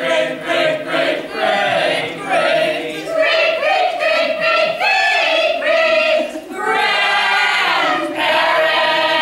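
A group of voices singing together in a chorus, in short sung phrases that end in a long held passage near the end.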